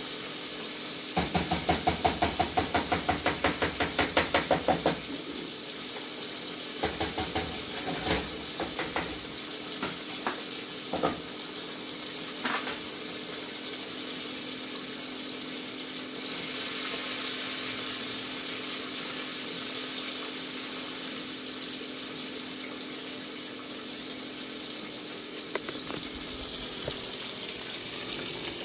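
Steady sizzling hiss of food frying on the stove. Over it, a cooking spoon stirs and scrapes a skillet of fish in gravy, first as a fast even run of about four strokes a second lasting a few seconds, then as a few scattered knocks against the pan.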